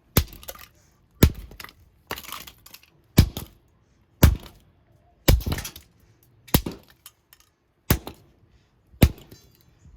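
A vintage Chevron ceiling fan regulator being struck hard again and again, about once a second, nine blows in all, its casing cracking and breaking apart. A few of the blows are followed by a short crackle of breaking pieces.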